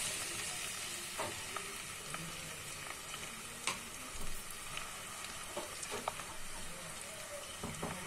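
Chopped onion, curry leaves and green chillies sizzling in hot oil in a pressure cooker: a steady hiss with a few scattered pops.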